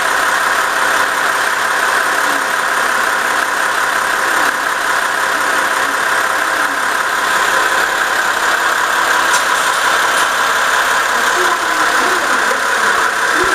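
KiHa 47 diesel railcar's engine idling at a standstill, a loud, steady drone.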